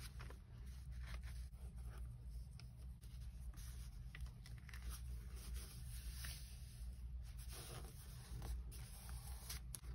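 Faint rustling and sliding of paper sheets being handled and laid onto a stack of papers.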